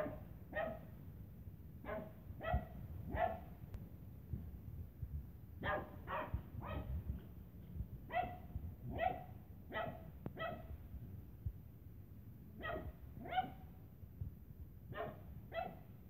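Small dog barking at play: sharp barks in quick runs of two to five, with short pauses between the runs.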